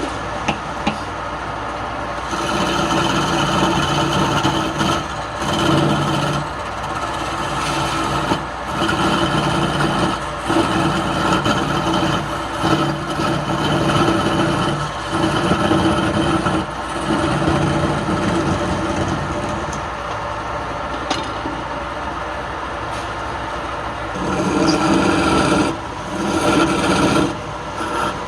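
Wood lathe running steadily, with something rubbing against the spinning wood in repeated passes of a second or two and short breaks between them.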